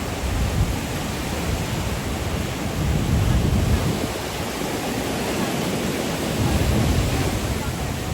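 Caribbean surf washing onto a sandy beach, with wind buffeting the microphone. The wash swells louder about three seconds in and again near seven seconds.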